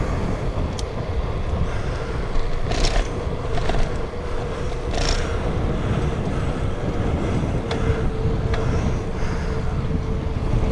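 Wind buffeting the microphone of an action camera on a bicycle at speed: a steady, loud low rumble with a faint steady hum underneath. A few short hissing bursts stand out, the loudest about three and five seconds in.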